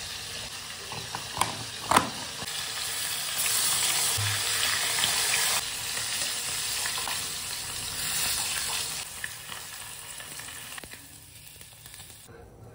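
Oil sizzling steadily as marinated pieces deep-fry in a wok, the hiss swelling in the middle and fading near the end. Two sharp clicks about one and a half and two seconds in stand out above it.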